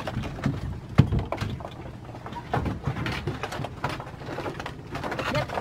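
Plastic kayaks being handled on a bamboo dock: scattered knocks and scrapes, with one sharp thump about a second in.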